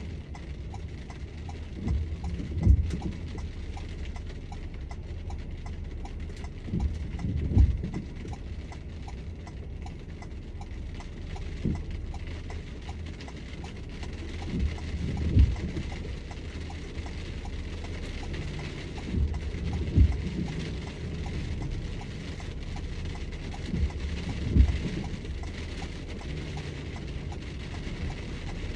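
Rain on a vehicle, heard from inside the cab, with a steady rumble. Over it run a fast, even clicking and a low thud about every four to five seconds.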